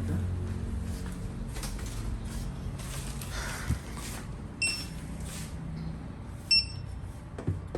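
Two short electronic beeps about two seconds apart, the second louder, over steady shop background noise with a few soft knocks.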